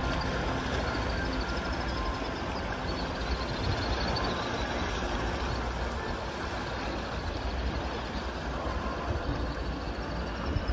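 Wind blowing across the microphone: a steady rushing noise with a heavy low rumble.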